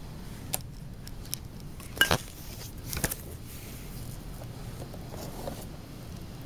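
Packaging of a trading-card value box being handled and opened: a few short, sharp clicks and rustles of cardboard and wrapping, the loudest about two seconds in and another about three seconds in.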